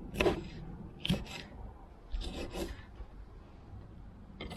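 Kitchen knife cutting a naga chilli into pieces on a wooden chopping board: three short cutting strokes about a second apart, the blade scraping on the wood.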